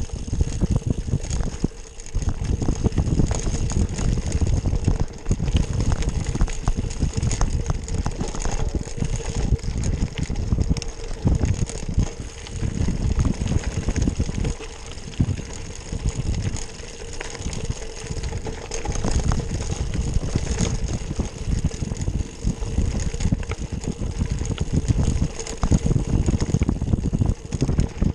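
Wind rumbling on the microphone while a cyclocross bike rides over rough trail, with the bike rattling and clicking.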